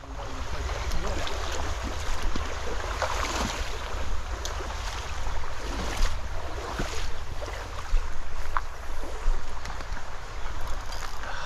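Wind buffeting a GoPro's microphone with a steady low rumble, over the wash of stream water, with a few light clicks.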